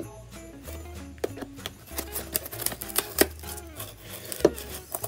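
Cardboard packaging being handled and pulled open: a run of sharp clicks and rustles, thickest in the second half. Background music with a steady, repeating bass line plays underneath.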